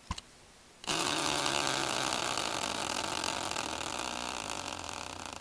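Tabletop prize wheel spun by hand, its clicker ticking very fast against the pegs; the ticking fades and slows into separate clicks near the end as the wheel coasts to a stop. A single knock just before, as the hand strikes the wheel.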